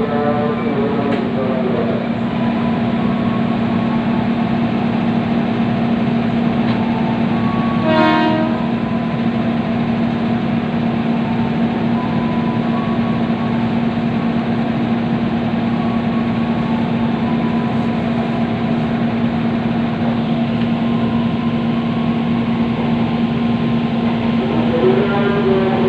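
KRL Commuter Line electric train heard from inside the carriage while running between stations: a steady hum and rolling rumble, with one short horn blast about eight seconds in.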